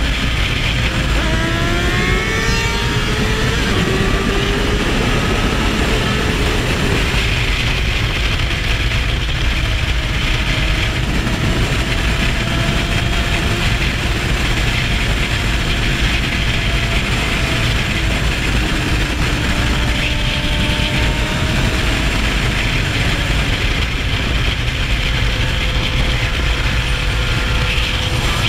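Sport motorcycle engine accelerating, its pitch rising in steps through the gears in the first few seconds, then running at a steady highway cruise. Heavy wind rush on the microphone underneath.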